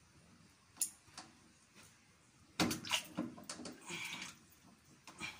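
Water in a tank splashing and sloshing as hands and pliers work in it, with a few sharp clicks and knocks and a loud cluster of splashes a little past halfway.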